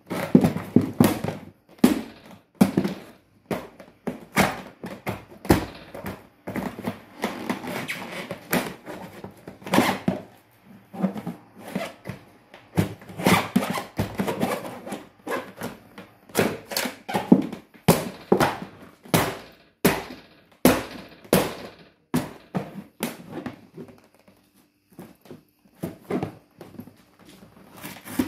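Red hard-shell suitcase flexing under heeled leather boots as someone stands and shifts their weight on it to crush it: an irregular run of knocks and thuds from the shell and heels, with creaking and crackling in between. It is quieter for a few seconds near the end.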